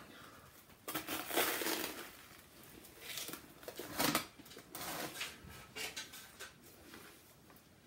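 Crunchy chewing of a Flaming Hot Cheetos and soft-shell crab sandwich, in irregular bursts, loudest about a second in and again around four seconds in.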